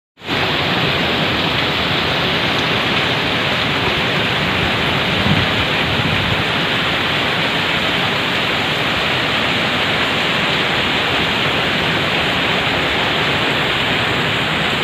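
Heavy storm rain pouring down, a loud, steady, even hiss that never lets up.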